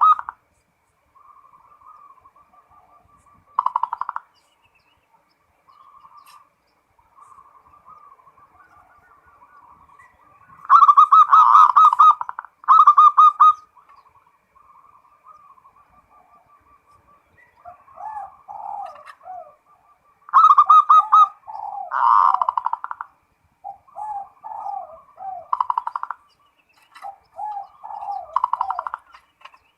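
Zebra dove (perkutut) singing over and over in rolling phrases of rapid coos. Soft trilled stretches are broken by loud bursts, and in the second half comes a run of repeated short, falling coos.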